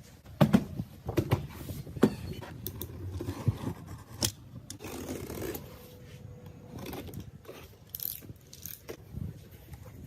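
Irregular sharp clinks and knocks with scraping in between, the sound of metal tools and an old axe head being handled on a work surface.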